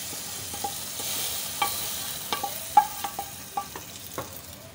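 Onion tadka in hot oil sizzling as it is scraped from a pan into a pot of kadhi with a wooden spatula; the sizzle fades as it settles into the kadhi. From about a second and a half in, several sharp metal knocks and clinks ring out as the pan and spatula hit the pot, the loudest near the middle.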